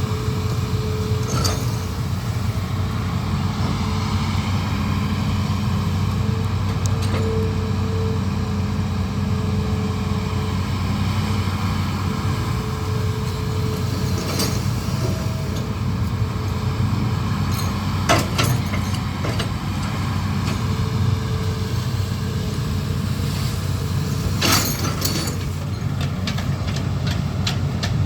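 Amphibious excavator's diesel engine running steadily, with a higher whine that comes and goes and a few sharp knocks, the last followed by a quick run of clicks near the end.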